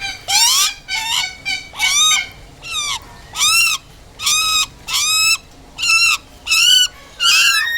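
Hooded butcherbird (jagal Papua) calling: a run of about a dozen loud, ringing notes, each rising and falling in pitch, repeated one after another.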